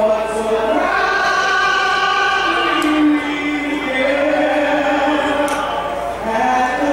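The national anthem sung in slow, long-held notes over the stadium sound system.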